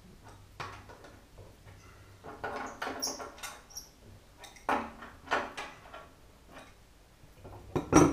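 Spanner working the brass compression nuts of a radiator valve onto 10mm copper pipe: scattered clicks, light knocks and small metallic clinks as the nuts are nipped up, with a louder knock near the end.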